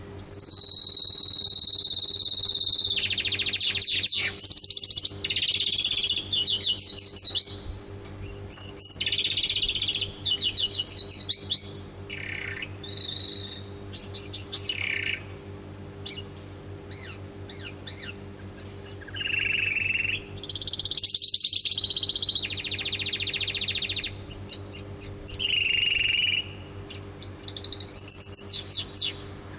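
Caged calandra lark and canary singing against each other: loud, high song phrases of long steady trills and quick runs of repeated notes, coming in bursts with short pauses and easing off for a few seconds around the middle.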